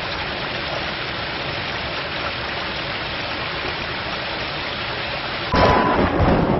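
Bathroom basin tap running, a steady rush of water into the sink. About five and a half seconds in it turns louder and more uneven as water is splashed up onto the face.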